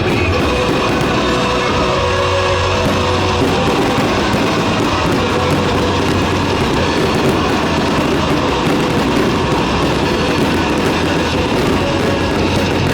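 Loud, steady music with guitar, likely played over the stadium loudspeakers during a fireworks show.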